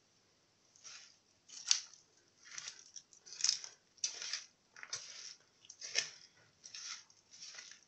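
Bare hands tossing and squeezing raw chopped onion, peppers, tomatoes and potatoes in a metal tray to coat them with spices: a run of short rustling handfuls, about one a second.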